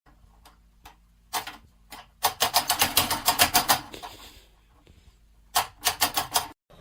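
Fast runs of sharp taps, about nine a second: a short single tap, then a run lasting about a second and a half, then a shorter run near the end.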